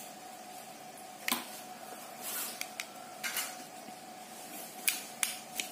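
Thin metal tool scraping and clicking against the plastic seam of a TV remote's case as it is pried open: a few sharp clicks and short scrapes, over a faint steady hum.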